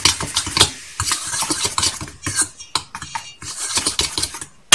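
Dry ingredients being stirred in a stainless steel mixing bowl: quick, irregular scraping and tapping of a utensil against the metal. It ends in a loud, ringing metal clang.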